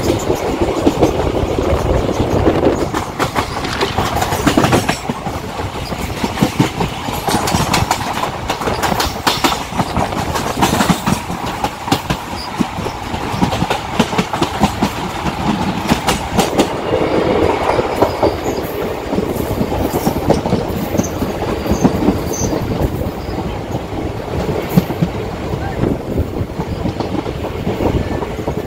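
Train running along the track, with a steady rumble and repeated wheel clatter over rail joints.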